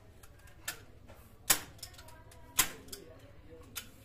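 Hand staple gun shooting staples into drape fabric: about five sharp snapping clicks at uneven intervals, the second and third much the loudest.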